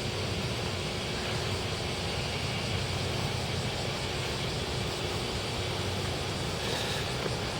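Steady outdoor background rumble and hiss, even throughout, with no distinct events.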